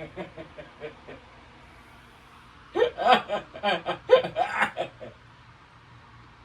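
A person laughing: faint short chuckles at first, then a louder run of choppy laughter about three seconds in that lasts about two seconds.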